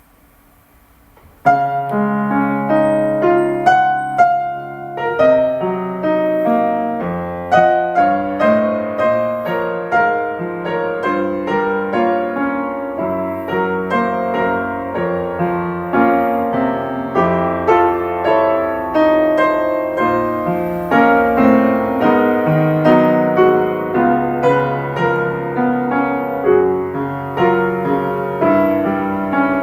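A piano starts playing about a second and a half in: a song with a melody over chords, played steadily on.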